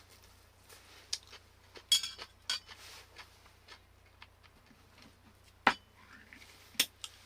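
A scattering of small clicks and knocks, like things being handled and set down; two sharper knocks near the end are the loudest.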